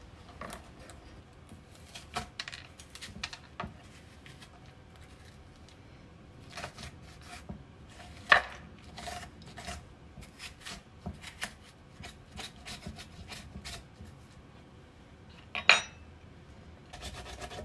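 Metal spoon scraping and scooping the seeds and white pith out of a halved bitter gourd on a wooden cutting board: scattered scrapes and light clicks, with a sharper clack about eight seconds in and another near the end.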